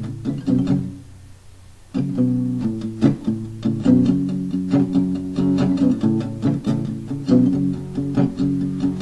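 Instrumental rock music led by guitars over a bass line. It drops out briefly about a second in and comes back in full about two seconds in.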